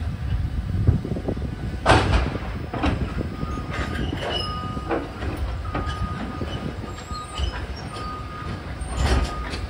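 Freight train's open-top hopper cars rolling on the track: a steady low rumble broken by repeated metallic clanks and knocks at uneven intervals, with a thin squeal that comes and goes.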